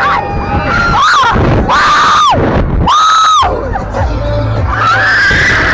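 Young women screaming on a fast fairground thrill ride: two long high screams in the middle and another near the end, over a steady rumble of wind on the microphone.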